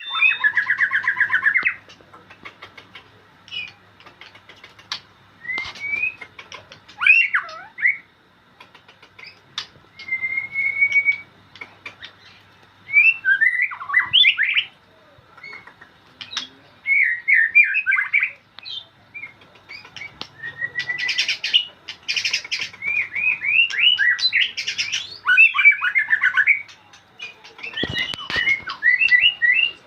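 White-rumped shama singing: bursts of varied phrases of clear whistles, quick rising and falling notes and rapid trills, separated by short pauses.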